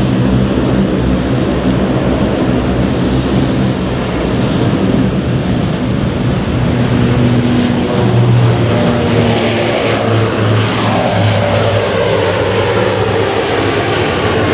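Regional airliner's engines running loud and close, a steady rushing noise with low hum, and a tone that glides down in pitch in the second half as the aircraft goes by.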